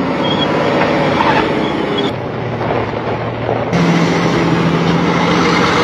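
Trucks on the move during the tow: steady rushing wind and road noise with an engine drone. A stronger low hum comes in about four seconds in.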